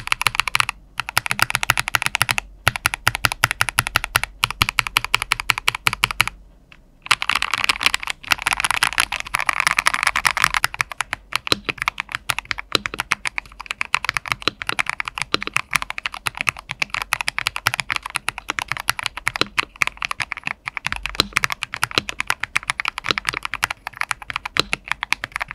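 Rapid, continuous typing on a mechanical keyboard fitted with CSA-profile PBT keycaps, each keystroke a short click with the deeper 'tok' character of that profile. The typing stops briefly a few times, longest about six seconds in, then picks up again denser and louder for a few seconds.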